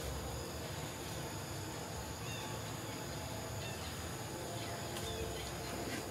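Steady outdoor background noise with a faint high insect drone and a few faint, short chirps about two and five seconds in.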